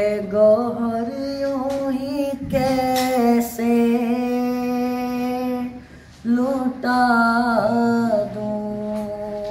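A young man singing a naat (Urdu devotional poem) solo, without accompaniment, in long held, wavering notes. The singing falls into three phrases, with short breaks about two and a half and six seconds in.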